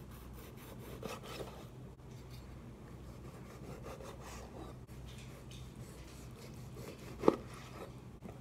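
Chef's knife sawing through orange peel and flesh on a plastic cutting board, with a single sharp knock near the end.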